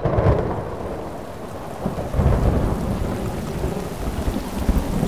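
Rain falling steadily with rolling thunder, starting suddenly as the music cuts off; deep rumbles swell right at the start, again about two seconds in and near the end.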